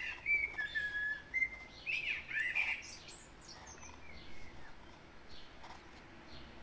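A bird chirping: a run of short whistled and gliding notes in the first three seconds, then only faint scattered chirps.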